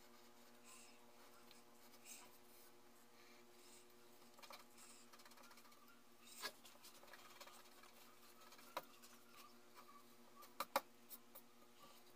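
Faint scratching of a pencil sketching on paper, with a few sharp clicks, the loudest two close together near the end, over a low steady hum.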